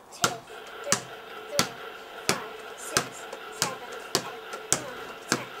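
A small rubber play ball bounced by hand over and over on stone paving slabs: a sharp smack at each bounce, nine in a steady run at about one and a half a second.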